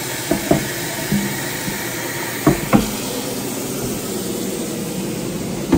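Kitchen tap running water into a pan, a steady hiss, with a few clanks of cookware.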